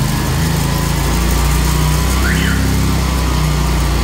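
40-horsepower industrial petrol engine of a high-pressure sewer jetter, freshly started, picking up from idle to working revs as work start is pressed on the remote, then running steadily. A short high chirp sounds about halfway through.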